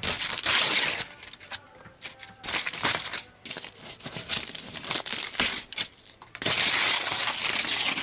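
Aluminum foil crinkling and tearing in irregular bursts as layers of it are peeled off duct board, with a longer continuous rip near the end.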